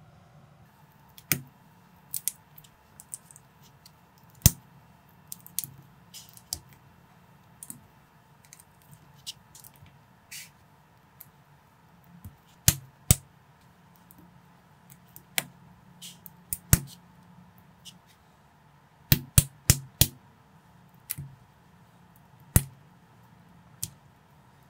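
LEGO bricks being handled and snapped together: irregular sharp plastic clicks, with a quick run of about four clicks a little past three quarters in.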